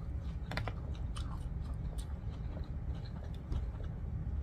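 A person chewing a mouthful of Chinese noodles, with short mouth clicks scattered through, over a low steady hum.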